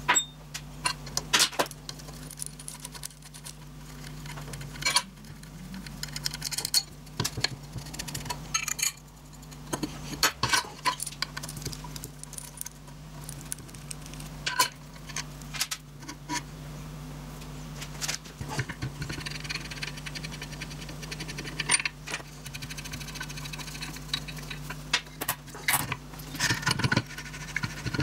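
Small metal parts and hex keys clinking and clicking as a drill grinder is taken apart on a metal bench: scattered sharp knocks and rattles as fasteners are undone and castings and parts are lifted off and set down, over a steady low hum.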